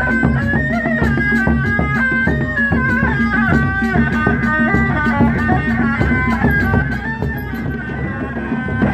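Sundanese reak ensemble music: a shrill, reedy wind melody, typical of the tarompet shawm, played over a steady drone and continuous drumming.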